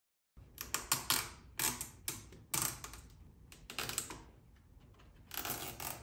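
Marine stereo head unit and its wiring being handled and pressed into a plastic dash panel: an irregular string of sharp plastic clicks, taps and rustles.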